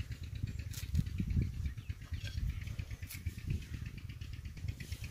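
Outdoor field ambience: an uneven low rumble of wind on the microphone, with a few faint clicks and snaps from coriander sprigs being picked and cut with a small knife.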